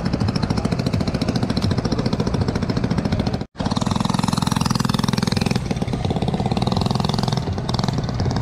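Small single-cylinder engine of a micro go-kart running, with a fast, even beat of exhaust pulses. It breaks off for an instant a little past three seconds in, then runs on with its note shifting.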